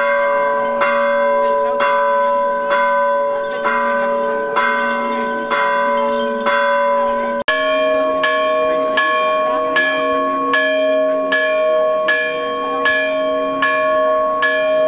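Church bell rung in a steady beat, a little over one stroke a second, each stroke ringing on into the next. About halfway the sound drops out for an instant and resumes at a different pitch and a slightly quicker pace.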